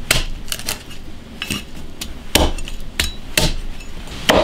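Cleaver chopping fish roe on a thick wooden chopping block: a string of irregular knocks, roughly two a second.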